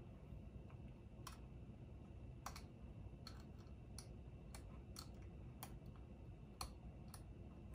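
Faint, irregular plastic clicks and taps, about a dozen of them, as hands work a small fan's header connector into its socket on a graphics card.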